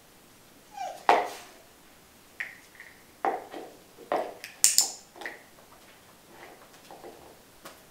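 A hand-held dog-training clicker and small knocks of handling: several sharp clicks at uneven intervals, the loudest about a second in and again just before the middle, with fainter ones after.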